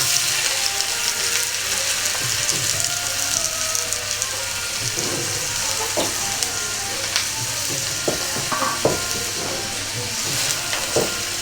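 Sliced onions sizzling in hot desi ghee in a kadhai, a steady frying hiss. A few light knocks come in the second half.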